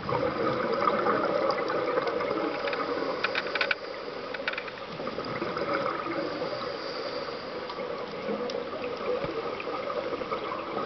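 Muffled underwater noise of scuba breathing: a steady bubbling hiss from a regulator and exhaled bubbles, heard through the camera's underwater housing, with a few sharp clicks in the first four seconds and a slight easing after about four seconds.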